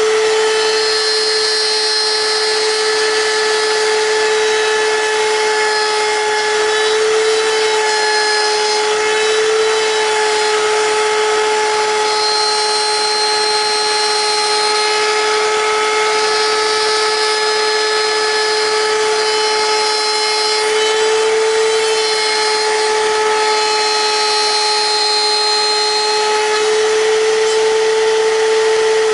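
Router spinning at a steady high speed, a constant high whine over a noisy rush, its pitch dipping slightly now and then.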